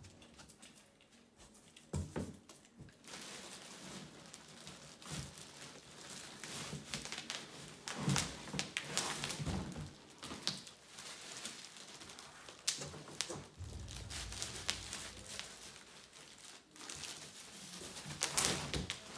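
Packaging of a boxed gaming chair being handled during unboxing: irregular rustling and crinkling with scattered knocks and thumps as parts are moved about.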